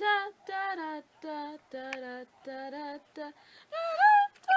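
A girl singing a tune unaccompanied, a string of short held notes broken by brief pauses, with a rising swoop near the end.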